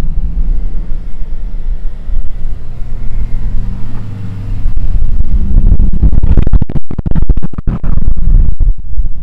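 Lowered Mercedes-AMG C-Class cabriolet driving slowly past, its engine and exhaust running low and steady at first, then much louder from about halfway as the car goes by.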